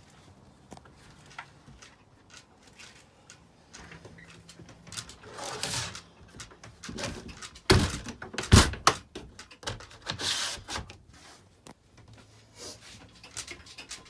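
Doors, latches and fittings being worked inside a small travel trailer. Scattered clicks and rubbing, with two heavy thunks about a second apart near the middle.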